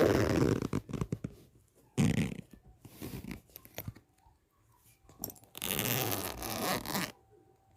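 A zipper being pulled open in several separate rasping runs, the longest about two-thirds of the way in.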